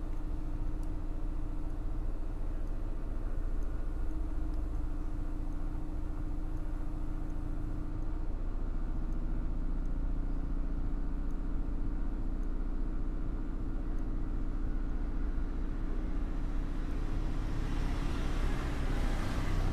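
Hot air rework station blowing onto a phone circuit board to reflow the solder under a new power-amplifier chip. Its motor hums steadily, the hum shifting pitch about eight seconds in, and a rushing hiss of air swells near the end.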